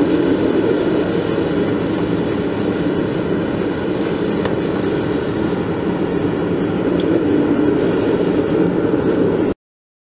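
Gas forge burner running with a steady rushing noise while a steel blade blank heats inside; the sound cuts off suddenly near the end.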